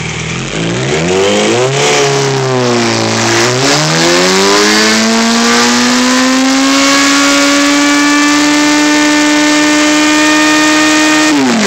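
Yamaha R1 inline-four engine revved during a stationary burnout. It gives a few blips, then climbs a few seconds in and holds at high, steady revs, dropping off just before the end. A steady hiss from the spinning rear tyre runs under it.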